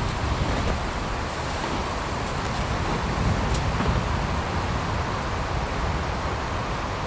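Steady low wind rumble on the microphone outdoors in snow. A few faint crunches of boots on packed snow come in the first few seconds, then stop as the walker halts.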